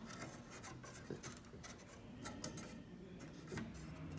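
Faint scraping, rubbing and small scattered clicks of a hand nudging Western Red Cedar chair back slats sideways to even out the gaps between them.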